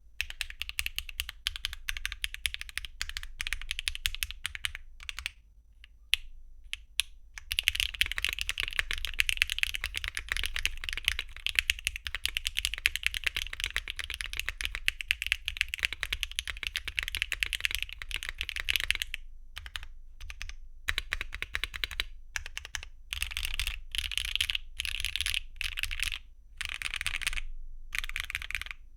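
Typing on a Mode Encore mechanical keyboard with a copper plate and copper bottom case, no foam, HMX x PhyniKeys Chu linear switches and double-shot ABS Cherry-profile keycaps: clacking keystrokes in a fast continuous run with a short pause around five seconds in, then typed in short separate bursts over the last ten seconds.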